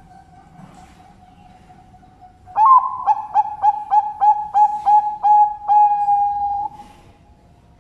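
Zebra dove (perkutut) singing: a loud run of about ten quick cooing notes, roughly three a second, ending on one longer held coo. It starts about two and a half seconds in, over a faint steady cooing in the background.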